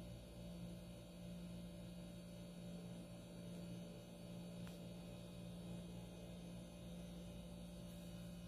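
Faint, steady low hum over quiet room tone, with a single faint click about halfway through.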